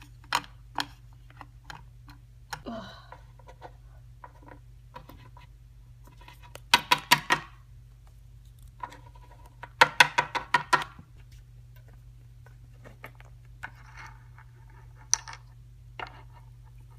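Small plastic Littlest Pet Shop figurines tapping on a wooden tabletop as they are hopped along, scattered single taps with two runs of quick taps a third and two thirds of the way through. A steady low hum lies underneath.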